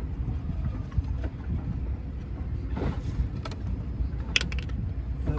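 A steady low rumble of outdoor background noise, with a few faint clicks as the drain screw is turned out of a small outboard's lower-unit gearcase.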